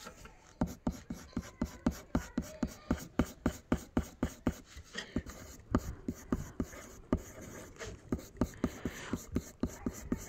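Graphite pencil making quick short strokes on paper, shading hair: a fast run of scratchy taps, about four to five a second.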